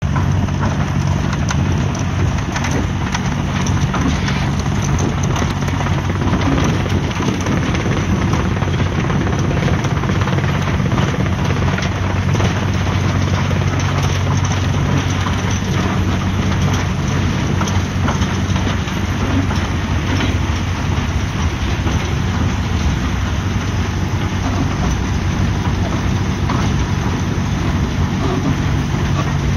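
Powerscreen Trommel 511 trommel screener running: its diesel engine drones at a constant speed, with a steady noisy hiss over it.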